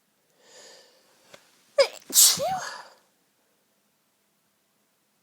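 A woman sneezes once: a breathy intake of breath, then a sharp, loud high-pitched 'ah-choo' about two seconds in.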